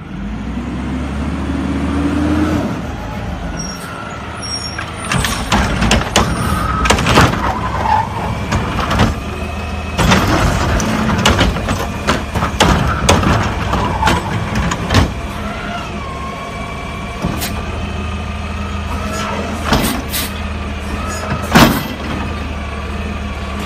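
Front-loading garbage truck working a curbside pickup. The diesel engine runs steadily while the hydraulics whine, rising and falling as the carry-can arm grabs, lifts and dumps a cart. Repeated metal clanks and bangs run through it, with one loud bang a little before the end.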